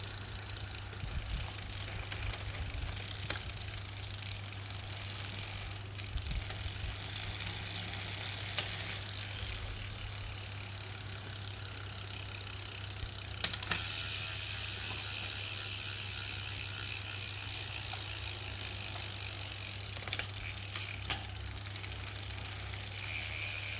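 Brompton 6-speed folding bicycle's drivetrain clicking as it is pedalled, a click that the owner was told is normal. About halfway through a louder, high whirring hiss sets in for several seconds, and it comes back near the end.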